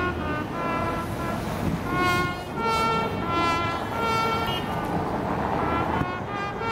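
Brass band playing a slow, mournful melody, held notes stepping from pitch to pitch, over the low murmur of a large crowd.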